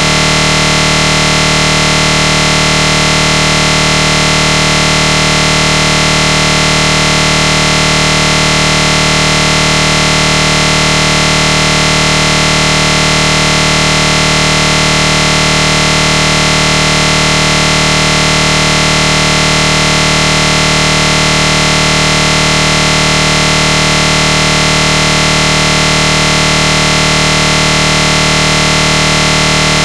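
A loud, perfectly steady buzzing noise made of many fixed tones, with no change or break at any point.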